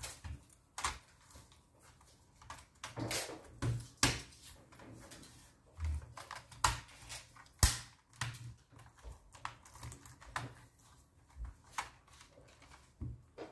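Irregular plastic clicks and taps of an Asus Eee PC 1015PX netbook keyboard as hands press across its keys and along its edges to seat it in the chassis.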